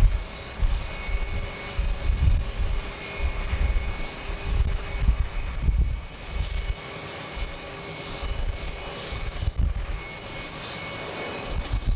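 Jet airliner engines running steadily at taxi power, a faint whine and rush, with gusts of wind buffeting the microphone.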